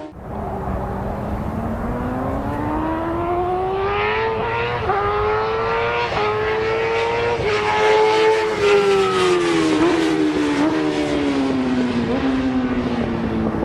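Motorcycle engine running on a race track: its pitch climbs steadily for several seconds, dips briefly a couple of times, then falls back as the revs drop.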